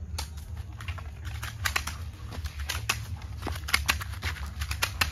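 Airsoft pistols firing in a quick-draw exchange: a fast, irregular run of sharp clicks and snaps that starts suddenly just after the opening, over a steady low rumble.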